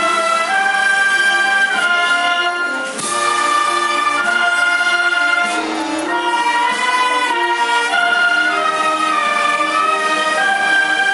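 Processional band playing a slow Holy Week march, transverse flutes among the instruments, the melody moving in long held notes.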